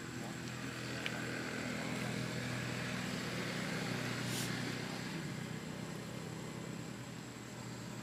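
Engine of a passing motor vehicle, a steady low hum that grows louder toward the middle and then fades away.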